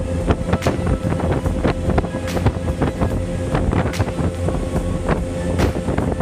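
A motorboat's engine running steadily under way, with irregular sharp slaps from the hull against the waves and wind buffeting the microphone.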